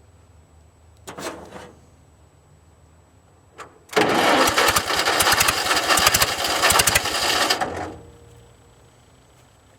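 Old Hobart engine-driven welder's gasoline engine being started after sitting 15 years: a short burst about a second in, then the engine fires and runs roughly for about four seconds before dying out, a hard start on a fuel-starved engine.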